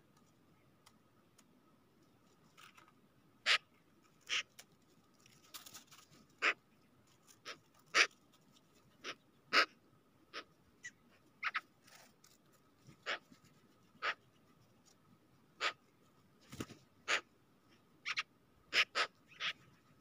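Magpies feeding on snow. Sharp single clicks and taps, spaced irregularly about one a second, start a few seconds in and sometimes come in pairs.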